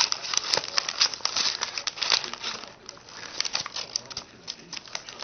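Brown paper bag of chips crinkling and rustling as a baby's hands grab, squeeze and pull at it. It makes irregular runs of sharp crackles that come and go in bursts.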